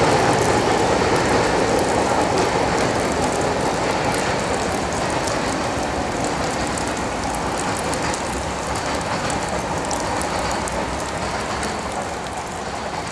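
Freight cars rolling over the rails as the tail of a passing freight train moves away, the sound steadily fading, with scattered faint ticks, over falling rain.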